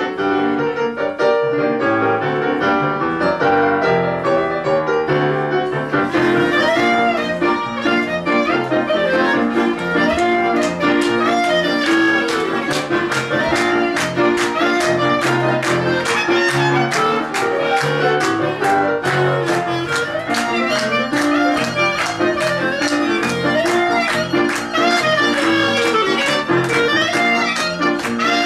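Klezmer trio playing live: violin and clarinet carry the melody over keyboard accompaniment. A steady beat comes in about six seconds in.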